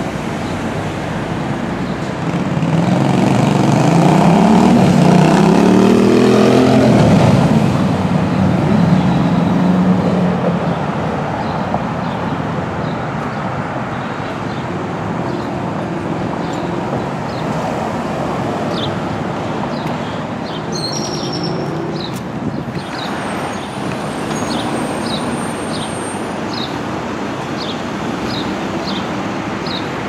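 Steady city street traffic noise. A motor vehicle passes close and loud a couple of seconds in, its engine note bending in pitch as it goes by and fading after about eight seconds. Later a bird chirps repeatedly, about two short high chirps a second, over the traffic.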